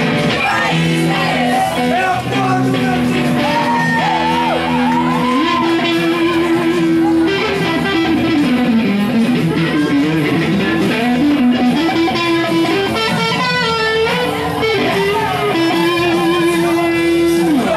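Electric guitar played live while a group of young voices sings along.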